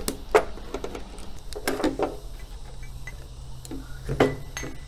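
Ratchet tie-down strap being released and pulled off a mower deck: a few sharp metallic clicks and clinks from the ratchet buckle, with small ticks between.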